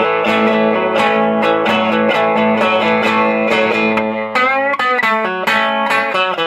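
Guitar playing a country-style major lick in A: the A minor pentatonic shape moved back three frets and played as a run of single picked notes. String bends come about four seconds in.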